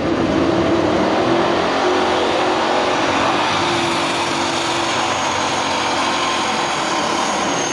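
Super stock diesel pulling tractor running at full power as it drags the weight-transfer sled down the dirt track. A thin high whine joins in near the end.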